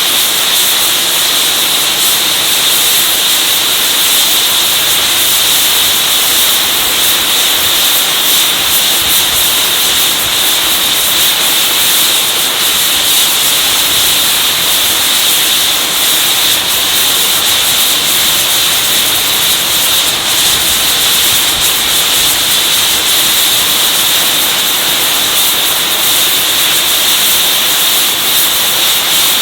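LMS Stanier Black 5 steam locomotive releasing steam in a loud, steady hiss, unbroken and without any chuffing beat.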